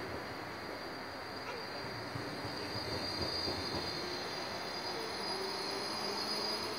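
Articulated city tram rolling past close by through a curve, with a steady high-pitched squeal from its wheels on the curved rails, strongest about halfway through.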